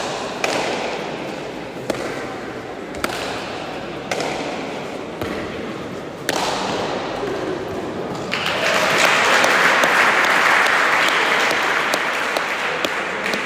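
Bare-hand Basque pelota rally: the hard ball smacks against the wall and the players' hands about once a second, each strike echoing around the court. About eight seconds in, the strikes stop and the spectators applaud as the point is won, and the applause slowly fades.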